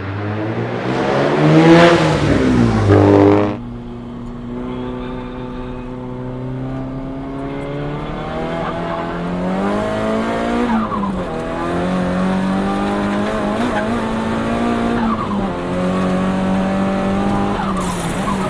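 Nissan Silvia S15's HKS GTIII RS-turbocharged four-cylinder revving hard with rising pitch, heard from inside the cabin, then cutting off suddenly as the throttle is lifted about three and a half seconds in. After that the engine runs at lower revs, rising and falling gently.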